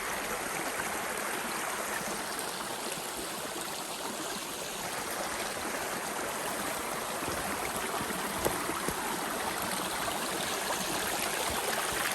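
Creek water flowing over rocks, a steady rushing; a couple of brief knocks about eight seconds in.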